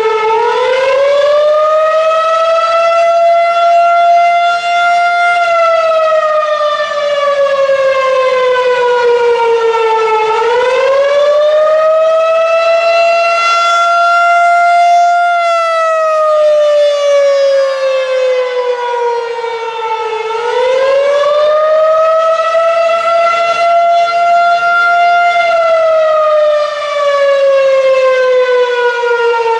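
Federal Signal 2001-SRN electromechanical siren sounding the attack signal on test. Its tone rises quickly, holds, then slides slowly back down, repeating about every ten seconds for three full cycles.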